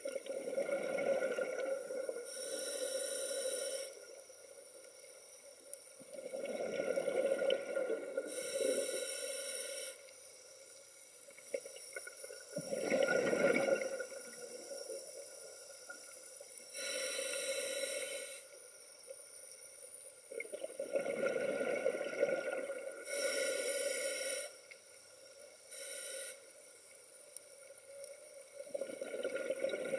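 Scuba diver's regulator breathing underwater in slow breaths: each a short high hiss on the inhale, then a longer bubbling exhale, about five breaths over the stretch.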